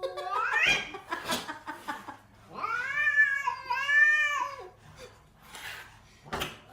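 A cat yowling in long, drawn-out calls that glide up and down in pitch: one rising call ends about a second in, and a longer one with two swells fills the middle.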